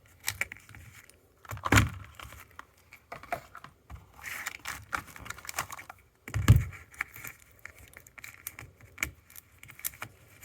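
Handling noise from a lightsaber replica hilt and its charging gear: scattered small clicks and rattles, with two louder knocks, one near two seconds in and one about six and a half seconds in.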